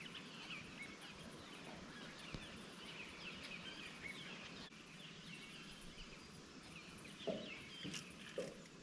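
Birds chirping faintly in the background, many short overlapping calls, over a low hiss of outdoor noise. Two soft low knocks come near the end.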